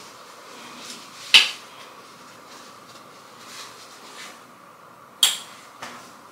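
Jewelry being handled while it is put on: two sharp clinks about four seconds apart, over faint steady room noise.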